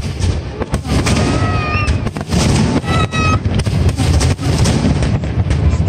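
Aerial fireworks display: shells bursting with many sharp bangs in quick succession over a continuous low rumble.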